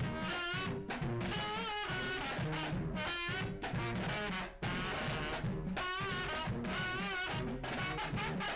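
Music with brass instruments over a drum beat.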